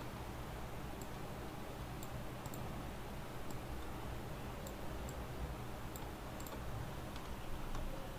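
Computer mouse clicking at irregular intervals, a dozen or so short sharp clicks, over a steady low hum.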